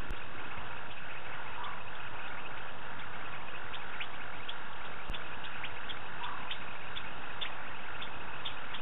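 Night-time African bush chorus: a steady hiss with many short, sharp high ticks, and two brief chirps, one about one and a half seconds in and another about six and a half seconds in.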